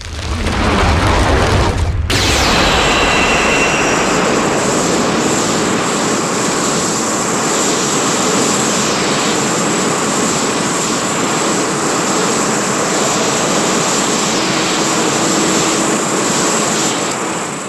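Monster-film sound effect: a loud, steady rushing roar like a jet engine, held for about seventeen seconds, with a brief break about two seconds in.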